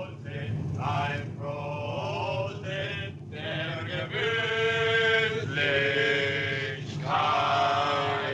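Men singing a song together in held, drawn-out notes, over a steady low hum.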